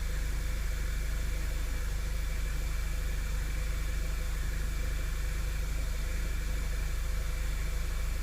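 2011 Audi A3's 2.0-litre turbocharged four-cylinder engine idling steadily during warm-up.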